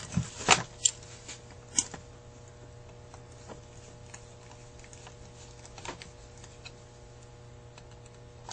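A few sharp metallic clicks and taps as the aluminium Carter AFB carburetor and its small linkage parts are handled on the bench, bunched in the first two seconds. After that only a steady low hum and a couple of faint ticks remain.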